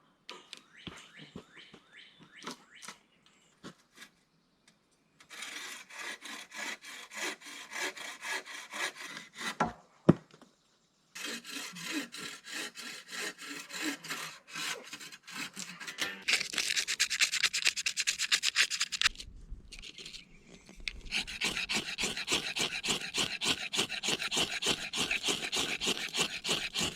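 Hand saw cutting wood in rapid back-and-forth strokes, in several bouts with short pauses between them, with a sharp knock about ten seconds in.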